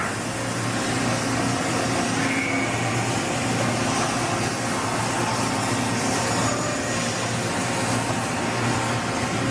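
Kitamura Bridgecenter-8G CNC bridge-type milling machine running: a steady hum with a continuous hiss.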